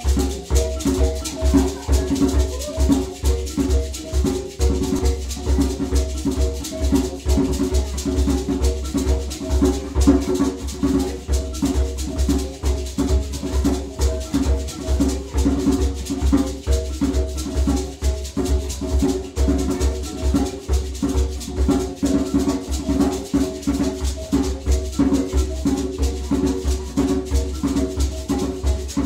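Shona mbira music: mbira played inside calabash resonators, with hosho gourd shakers and a hand drum keeping a steady repeating rhythm.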